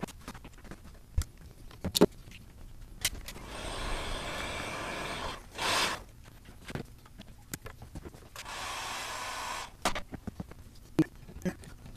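Heat gun blowing in a few short spells, shrinking heat-shrink tubing over the smoker's heating-element wire connections, with scattered clicks and taps of the wires and tools being handled in between.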